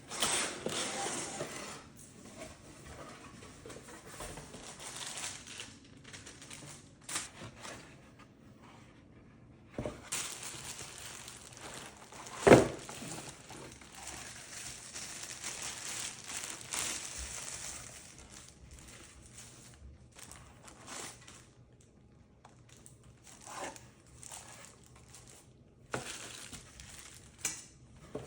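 Packaging of a newly opened coffee grinder box being unwrapped and handled: crinkling and rustling of wrapping in stretches, with one sharp knock about twelve seconds in.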